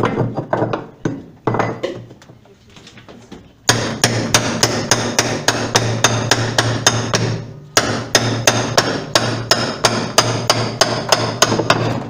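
Rapid hammer blows, about four a second, striking the metal hub at the centre of an LG top-load washer's wash basket, with a steady low hum beneath. The blows go in bursts: fainter around three seconds in, then long fast runs with a brief break about two thirds through. The basket is stuck on the transmission shaft and will not come off easily.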